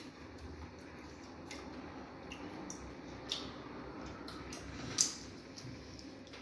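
Quiet chewing and lip smacks of people eating soft fufu and soup by hand. A few short, sharp smacks stand out, the loudest about five seconds in.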